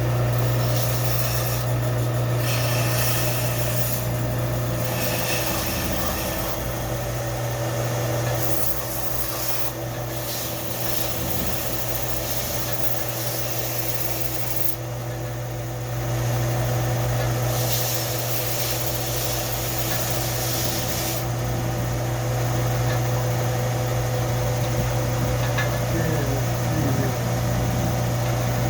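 Electric belt sander running with a steady motor hum while a steel adze blade is pressed to the belt to grind off rust and shape the edge; the grinding hiss starts and stops several times as the blade is put on and lifted off.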